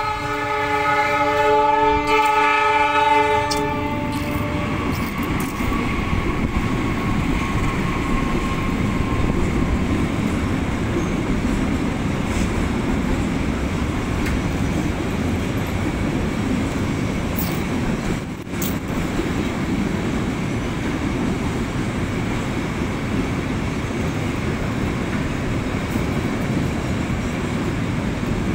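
Train horn sounding a loud steady chord for about four seconds, then the steady rumble and clatter of a long freight train's container and tank wagons rolling past a level crossing.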